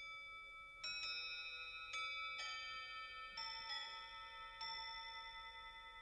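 A slow phrase of bell-like chime notes: about seven struck notes at uneven spacing, each ringing on and overlapping the next, fading toward the end.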